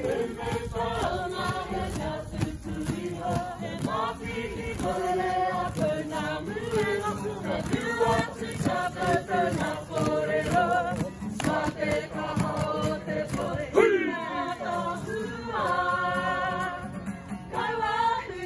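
A kapa haka group of men and women singing together in chorus, accompanied by a strummed acoustic guitar.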